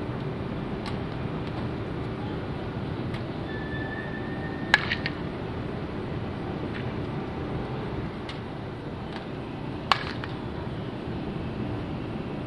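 Open-air ballpark ambience: a steady murmur with faint distant voices. Two sharp cracks about five seconds apart cut through it, the first followed by a couple of quicker, smaller clicks.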